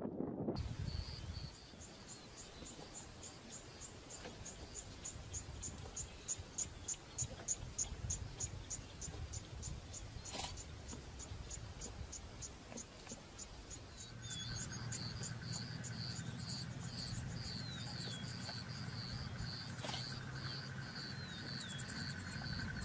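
Field ambience of insects chirping in a steady high rhythm, about four chirps a second, over a low rumble. About halfway through it changes to a different insect chorus with a continuous trill and a few short falling whistles. Two sharp clicks cut through, one about ten seconds in and one near the end.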